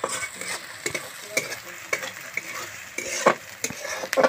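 Onion and ginger-garlic paste sizzling in hot oil in a steel kadhai, stirred with a metal spatula that scrapes and clicks against the pan several times, loudest about three and four seconds in.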